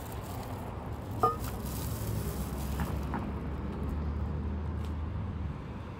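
A steady low rumble of a vehicle engine running nearby. About a second in comes one sharp clink with a short ring, as a bag holding a bottle is set down on a tiled concrete table.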